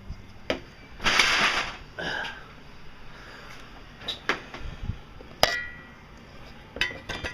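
Wrench and metal engine parts clinking as the alternator bolts are worked: scattered sharp clicks and taps, one with a brief metallic ring about halfway, and a short rustling hiss about a second in.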